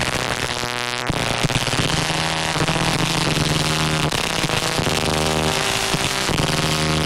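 Electronic music: held synth chords that shift every second or so over a dense, noisy wash.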